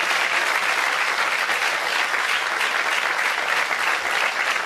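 Audience applauding steadily, a dense round of clapping.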